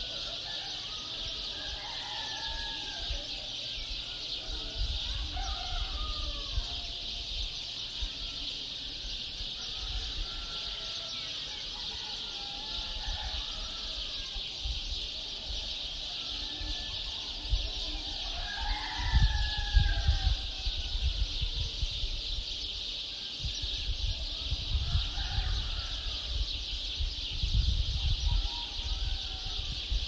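Birds chirping and calling at dawn over a steady high hiss. A low rumble comes in about nineteen seconds in and again near the end.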